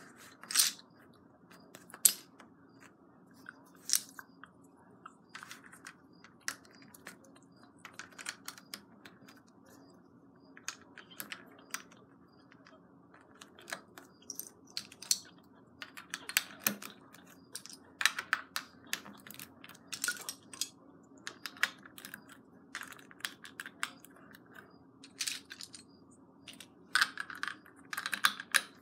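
Plastic LEGO bricks clicking and clattering at irregular intervals as they are picked from a loose pile and pressed onto a LEGO baseplate.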